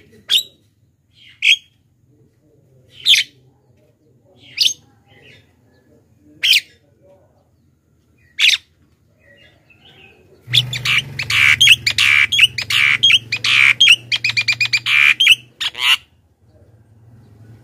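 Javan myna (jalak kebo) giving single sharp calls every second or two. About ten seconds in it breaks into a dense run of rapid chattering notes that lasts about five seconds.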